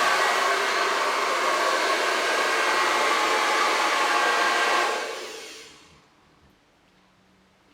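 Hair dryer blowing steadily, then switched off about five seconds in, its sound dying away over about a second.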